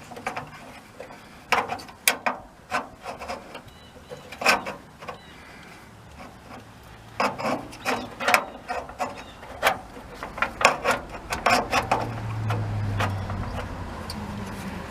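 Latch rods and door-handle mechanism of a VW split-window bus cargo door being worked into place by hand: irregular metal clicks, knocks and scraping as the rods slide and seat in the door.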